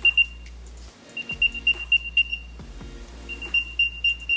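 Apple AirTag's built-in speaker playing its find-my locating sound: runs of rapid high-pitched beeps, one ending just after the start, another about a second in, and a third near the end.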